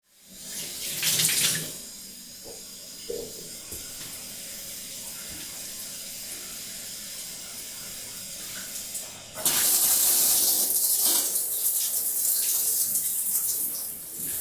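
Water running from a tap into a bathtub, with a short surge about a second in and a few light knocks soon after. About nine seconds in, the flow suddenly gets louder and hissier, as if the tap is opened further.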